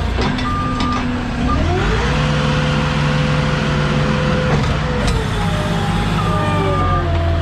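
Moffett truck-mounted forklift's engine revving up about two seconds in, holding steady while it drives with a load of lumber, and dropping back near five seconds. Near the end a reversing beeper starts sounding in short repeated beeps.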